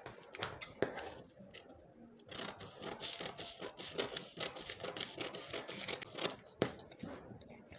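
Scissors snipping through brown pattern paper: a few scattered clicks and paper rustles, then a quick run of snips from about a third of the way in, ending with a single louder click.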